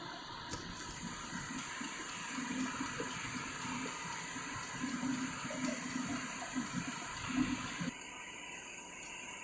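Slant-bed CNC lathe running with flood coolant splashing, a steady rushing wash with uneven low knocks. The sound drops abruptly about eight seconds in.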